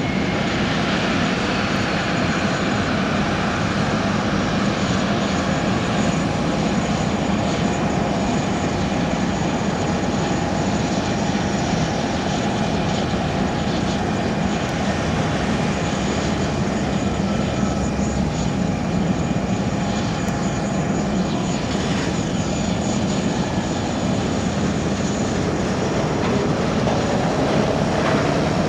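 Boeing 787-8 Dreamliner during pushback from the gate: a steady, unbroken aircraft roar with a constant whine in it.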